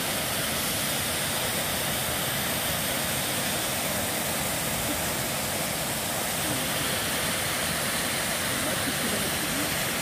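Waterfall plunging into a rock pool: a steady rushing of falling water.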